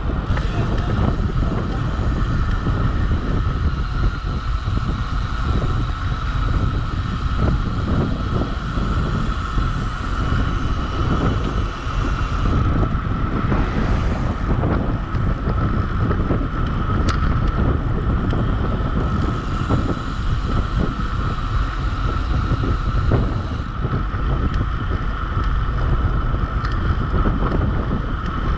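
Wind buffeting the microphone of a rider going fast downhill, a loud, steady rumble, with a steady high hum underneath.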